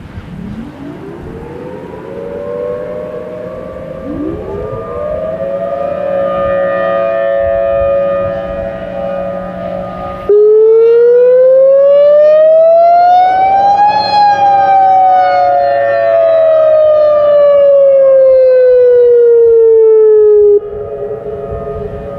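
Federal Signal Thunderbolt 1000T mechanical sirens winding up, one lot and then another about four seconds later, and settling into a steady wail. About ten seconds in, a Federal Signal Modulator MOD5020 electronic siren starts suddenly and much louder, sounding one slow wail that rises in pitch for about four seconds and falls for about six, then cuts off abruptly while the mechanical sirens keep wailing.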